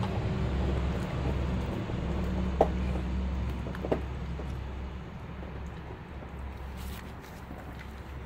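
Renascence Bulldogge puppy licking and chewing a raw chicken leg quarter, with two sharp crunches a little over a second apart. Under it runs a low steady rumble that fades after about five seconds.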